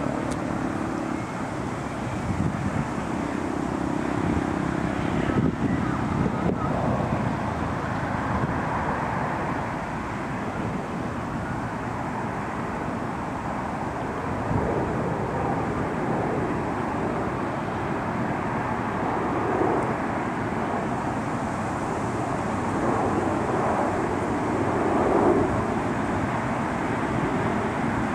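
Steady outdoor city background noise: a continuous hum of distant traffic and engines, with small swells now and then.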